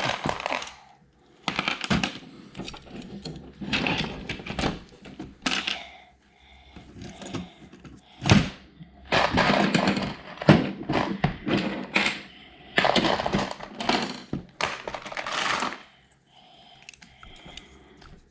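Plastic Lego bricks clattering and clicking in quick bursts as they are rummaged through and pressed together.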